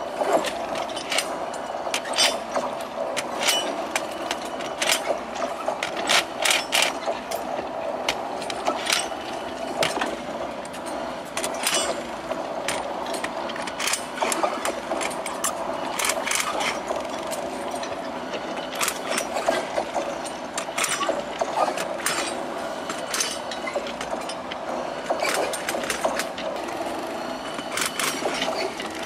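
Irregular sharp metallic clanks and clicks of rail fastening clips and hand tools being worked on a steel track, over the steady drone of an engine running.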